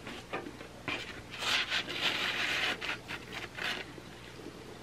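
Pizza slice being pulled and lifted out of a cardboard pizza box, with crust and cheese scraping and rubbing against the cardboard. The rubbing is loudest in the middle and dies away after about four seconds.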